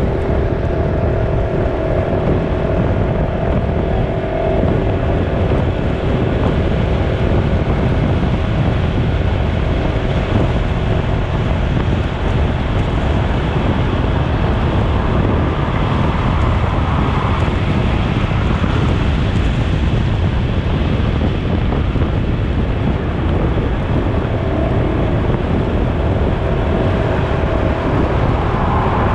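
Steady running noise of a moving vehicle, a loud low rumble, with a faint pitched whine that fades out over the first ten seconds.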